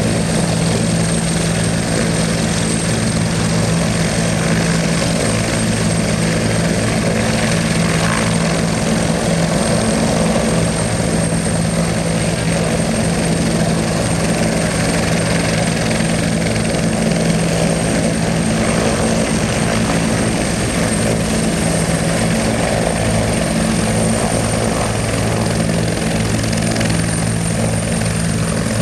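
Air rescue helicopter running on the ground, engines and rotor making a steady loud drone with a thin high whine above it.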